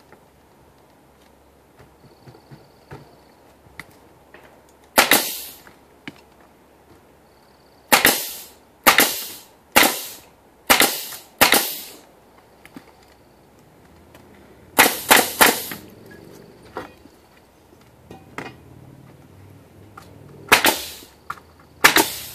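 Ridgid pneumatic nail gun firing about eleven sharp shots at irregular intervals, three in quick succession, driving nails into a 2x6 wooden window sill.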